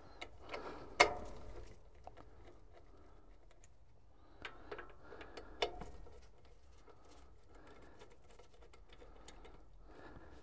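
Allen key turning the steel PTO adjustment studs of a tractor dual clutch pressure plate: light metallic clicks and scraping as the studs are screwed down. A sharp click about a second in is the loudest, with another just before the six-second mark.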